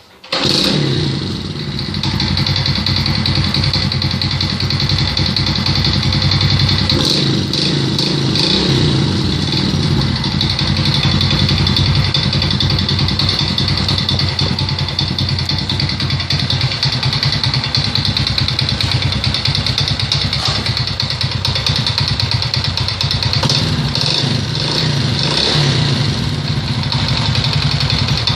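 Alfa 110 moped's single-cylinder four-stroke engine starts up and runs steadily at idle with a knock in the engine. The knock appeared after the crankshaft was replaced, and its cause is unknown to the owner.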